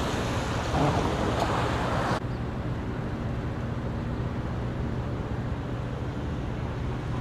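Road traffic noise with wind on the microphone, a steady hiss over a low rumble; about two seconds in the hiss cuts off abruptly, leaving a duller rumble.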